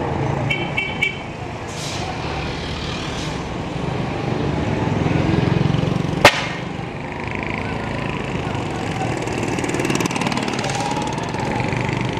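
Busy street traffic with a vehicle engine and voices, a few short horn beeps about half a second in, and engine noise swelling as a motorcycle passes. About six seconds in comes a single sharp crack, the loudest sound.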